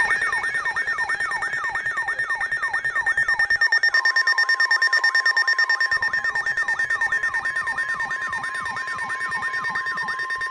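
Emergency alert tone: an electronic sweep falling in pitch, repeated about three times a second. A steady tone joins it about four seconds in and holds on after the sweeps stop.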